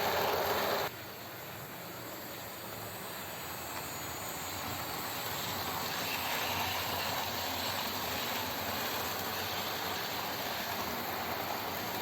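OO gauge model trains running along the track: an even whir and rattle of wheels on rails and small motors. It cuts off abruptly about a second in, then builds up gradually over the next few seconds and eases slightly near the end.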